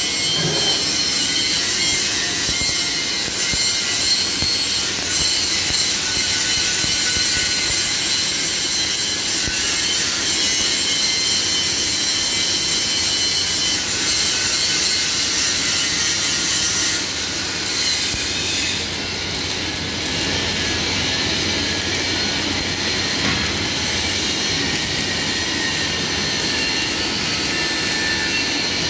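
Electric arc welding on steel plate: the arc crackles and hisses steadily while a weld bead is laid, a little quieter from about halfway through.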